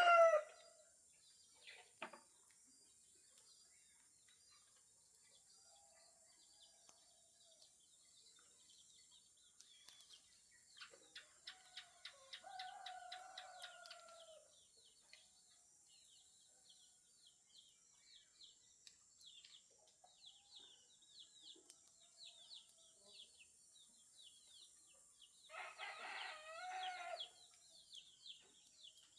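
Roosters crowing: the tail of one crow right at the start, then a quieter crow about halfway through and another near the end. Small birds chirp steadily between them, over a faint steady high hiss.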